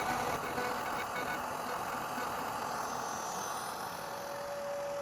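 CNC router carving with a 60-degree V-bit: steady spindle running noise, with a thin tone coming in about four seconds in.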